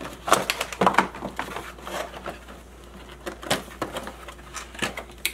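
A cardboard box being opened and unpacked by hand: irregular rustling and scraping of cardboard flaps and packing, busiest in the first second and again about three and a half seconds in.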